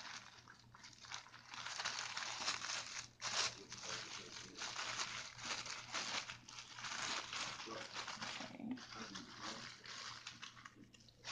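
Clear cellophane treat bag crinkling and rustling as hands handle it, in irregular bursts with a sharper crackle about three seconds in.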